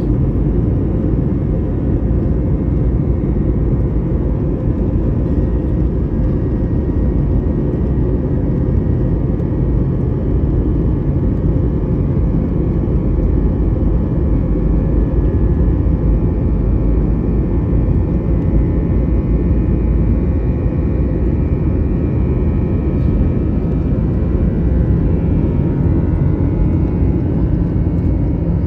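Airbus A320 jet engines running during takeoff: a loud, steady low rumble with a faint high engine whine, some of whose tones drift slowly upward near the end.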